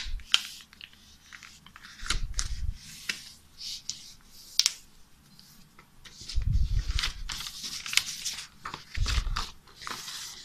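A square sheet of paper being folded and creased by hand: repeated crisp rustles and crinkles as it is slid, pressed flat and lifted, with a few dull thumps against the table.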